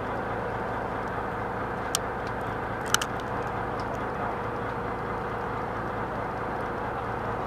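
Fishing boat's engine running with a steady drone. Two sharp clicks come about two and three seconds in.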